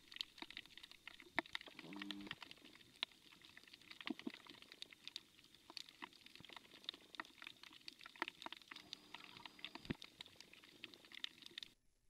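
Faint underwater ambience of scattered, irregular sharp clicks and crackles, with two short low hums about two seconds in and again near nine seconds.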